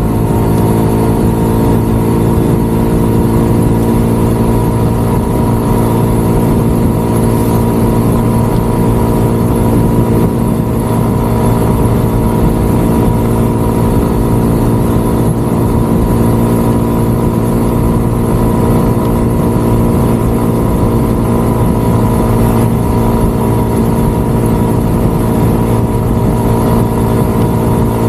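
Small motorcycle engine running at a steady cruising speed, its pitch holding even, with a constant low wind rumble on the microphone.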